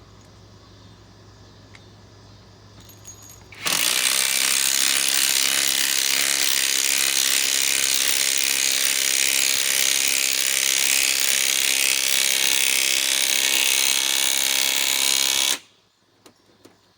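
Metabo SSW 18 LT 300 BL cordless compact impact wrench hammering steadily as it drives a lag screw of about 3.5 inches. It starts about four seconds in, runs for about twelve seconds and stops abruptly.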